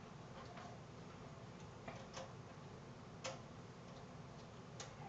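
Faint, scattered metallic clicks of a screwdriver working a screw into a spacer inside a metal computer case, about five clicks a second or so apart.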